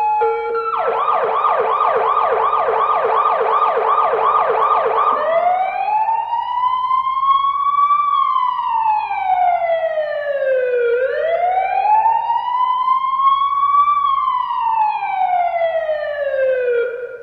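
Police car siren changing modes. A brief two-tone hi-lo gives way to a fast yelp, about three sweeps a second, until about five seconds in. Then comes a slow wail, rising and falling in long sweeps of about six seconds each, cut off just at the end.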